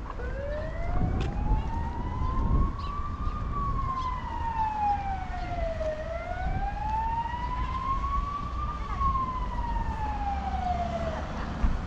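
Emergency vehicle siren in a slow wail: two long rising-and-falling sweeps, each climb taking about three seconds, stopping just before the end. A low rumble of street traffic runs underneath.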